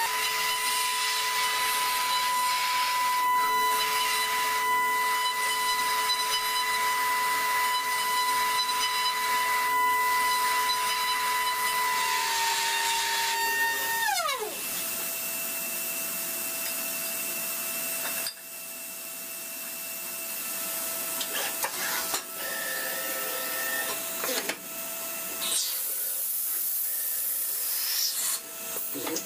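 CNC milling machine with its spindle running at speed, a steady high whine while an end mill cuts a metal block. About halfway through the whine drops sharply in pitch as the spindle winds down. A lower steady machine hum follows, with scattered clicks and knocks.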